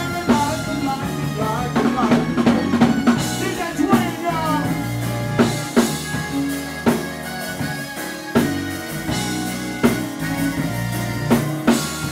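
A live band playing with drum kit, electric guitar and keyboard, with the snare and bass drum hits prominent on a steady beat.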